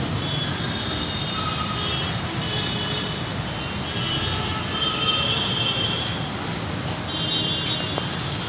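Steady background rumble with high-pitched squeals that come and go several times. The squeals are strongest about five seconds and seven seconds in.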